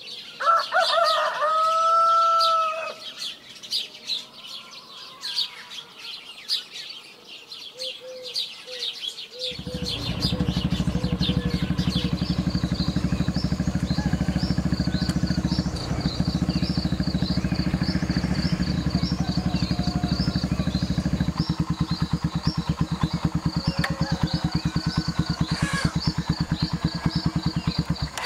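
A rooster crows once near the start while small birds chirp. About ten seconds in, a steady low drone with a fast even pulse starts and keeps going under the chirping.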